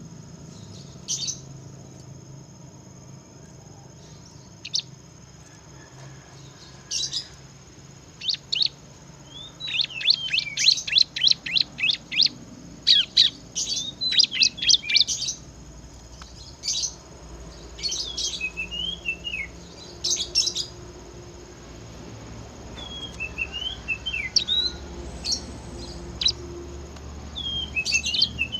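Bar-winged prinia (ciblek) singing: sharp high chirps in scattered bursts, breaking into fast rattling runs of notes around the middle and again near the end.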